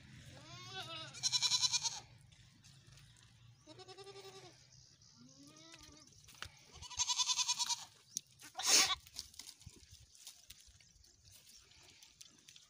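Goats bleating, about four wavering calls, some high and loud, others lower. A short sharp noise cuts in once, a little past the middle, and is the loudest sound.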